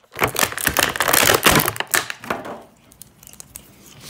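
Clear plastic packaging tray crinkling and crackling as an action figure is pulled out of it. The crackling is dense and loud for the first two and a half seconds, then thins to a few light clicks.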